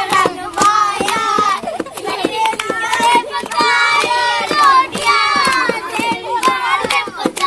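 Many high-pitched children's voices calling and singing over one another, with frequent sharp claps or knocks mixed in.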